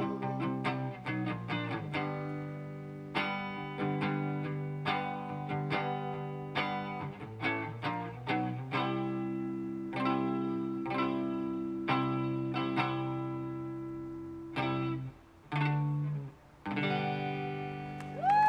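Electric guitar, a white Stratocaster-style, played alone: picked chords and single notes that ring on between strikes. It stops sharply twice near the end, with brief silences before the last ringing chord.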